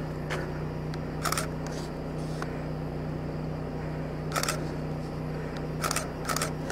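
Car idling, heard from inside the stopped vehicle: a steady low hum, with a few short, sharp clicks scattered through it.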